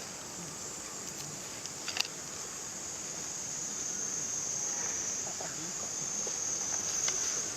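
Insects buzzing in a steady high-pitched drone that swells and then cuts off suddenly near the end, with a single sharp click about two seconds in.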